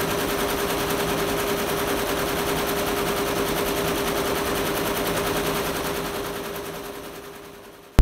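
Multi-needle commercial embroidery machine stitching a design into hooped fabric: a rapid, steady clatter of needle strokes over a steady hum, fading out over the last two seconds.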